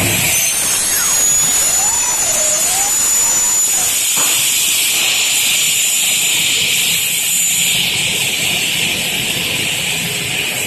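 Double-head cutting saw for aluminium and PVC window profiles running, its hard-alloy (carbide) blades spinning with a steady high whine over a loud hiss. The whine stops about eight seconds in while the hiss carries on.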